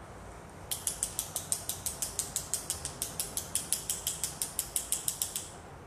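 Paintbrush loaded with white paint tapped rapidly against a wooden stick, about six light wooden clicks a second, flicking a spatter of paint onto the paper to make stars. The tapping starts about a second in and stops shortly before the end.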